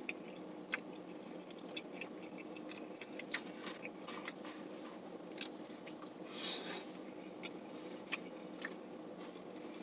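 A person chewing a mouthful of boneless chicken wing with the mouth close to the microphone: soft wet clicks and smacks at irregular moments. A brief breathy rush comes about six and a half seconds in. A steady low hum runs underneath.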